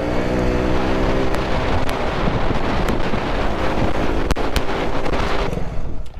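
Motorcycle engine running on the move, buried under heavy wind rushing over the microphone, with a few sharp clicks. Near the end the wind noise cuts out abruptly, leaving a lower engine rumble.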